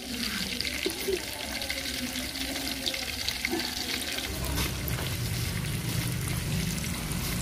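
Masala-coated fish frying in hot oil in an aluminium pan over a wood fire: a steady sizzle with small crackles and pops. A low rumble comes in about four seconds in.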